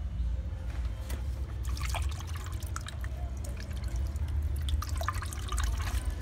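Water splashing and dripping in a fish tub as a hand dips into and stirs the water, in two bursts of small splashes over a steady low rumble.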